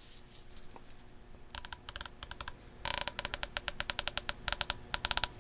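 Top (elevation) turret of a DiscoveryOpt HD Gen II 5-30x56 rifle scope turned by hand, clicking through its detents. The clicks are faint and begin about a second and a half in, then come in a quick, steady run from about three seconds in.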